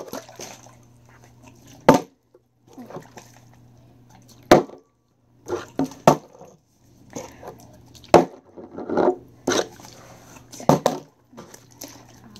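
Plastic water bottles being flipped and landing on a wooden table: about seven sharp thuds a second or two apart, with the water sloshing inside.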